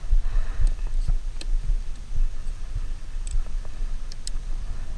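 Wind buffeting the microphone in an uneven low rumble, with a few light, sharp clicks scattered through it.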